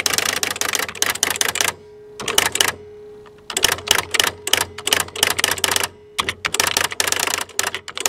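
Packard Bell PB10TX electronic typewriter printing characters in rapid runs of sharp strikes, broken by a few short pauses in which a faint steady tone from the machine can be heard.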